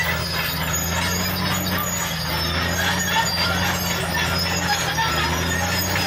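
Caterpillar D6R crawler bulldozer's diesel engine running steadily under load, with short squeaks and clatter from its steel tracks as it pushes a pile of dirt and gravel.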